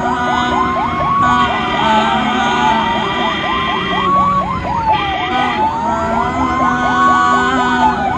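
Ambulance siren sounding continuously, a fast warbling yelp over a slower rising-and-falling wail. A horn blares in steady held notes that come and go, the longest lasting about three seconds.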